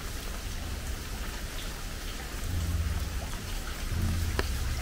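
Steady rain falling, with single large drops ticking now and then. About two and a half seconds in, a deep low rumble sets in and grows louder.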